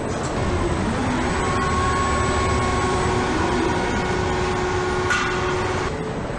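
Steady hum of automated factory machinery with a whining tone, and a sharp click about five seconds in.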